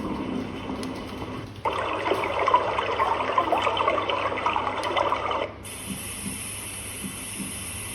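Sleep-aid speaker playing its built-in white-noise and nature sounds, switching between tracks: a low rushing noise, then running, bubbling water from about a second and a half in, then a steadier hiss with a high edge from about five and a half seconds in.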